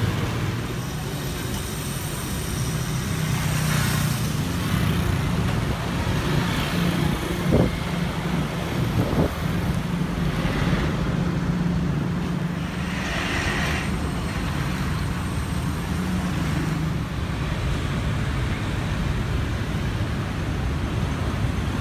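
Busy street traffic: a steady hum of motorbike and car engines passing close by, swelling as vehicles go past, with two short sharp sounds about seven and nine seconds in.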